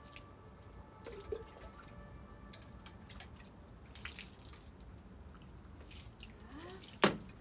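Water poured from a jug over a wet dog's coat, dripping and splattering onto the paving stones. A single sharp knock about seven seconds in is the loudest sound.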